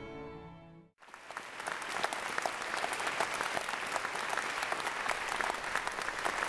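A symphony orchestra's strings sound a held chord that cuts off sharply about a second in, followed by a large audience applauding, many hands clapping densely.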